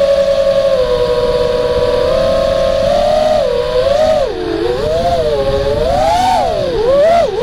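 Quadcopter's brushless motors and propellers whining. The pitch holds fairly steady at first, then from about three seconds in rises and falls again and again as the throttle is worked through banking turns.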